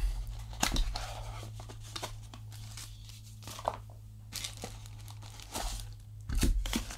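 A guitar pedal's cardboard box being opened and the pedal, wrapped in a thin plastic bag, pulled out: crinkling plastic and rustling cardboard with scattered small knocks, busiest near the end.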